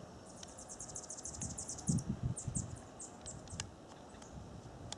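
A small bird's rapid, high chittering trill of about ten notes a second, breaking into a few slower separate chips about three seconds in, over low thumps that are loudest about two seconds in.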